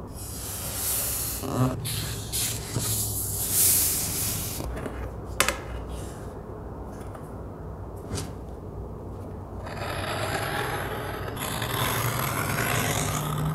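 Paper pattern being rubbed and smoothed down onto cardboard, with a sharp click about five seconds in. Near the end comes a long steady scrape as a craft knife cuts the cardboard along a steel ruler.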